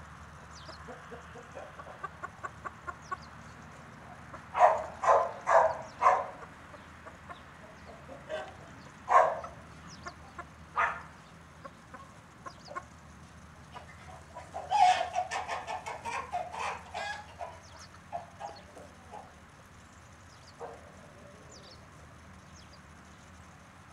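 Chickens clucking: soft quick clucks, then a set of four loud calls, single calls after them, and a long run of rapid calls about two-thirds of the way through.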